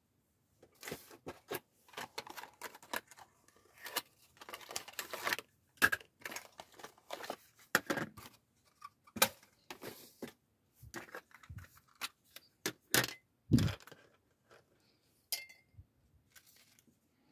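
Rummaging in a drawer for a new tape runner: irregular clicks and clatters of small items being handled, a stretch of crinkly rustling about four to five seconds in, and a couple of heavier knocks about thirteen seconds in.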